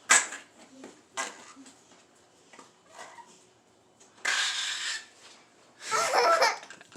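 A young child laughing and giggling in short bursts, with a few brief breathy and clicking noises in between.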